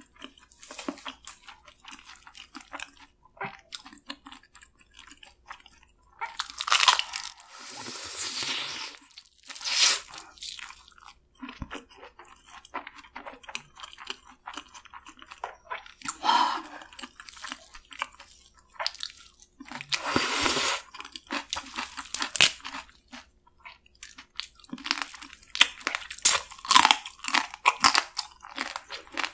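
Close-miked wet chewing and crunching of spicy marinated raw crab and rice, with many small clicks and a few louder drawn-out bursts; near the end, meat being sucked from a piece of crab.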